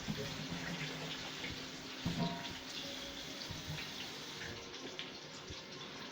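Beef roast sizzling steadily in a skillet of very hot grease, with small crackles and pops through the frying.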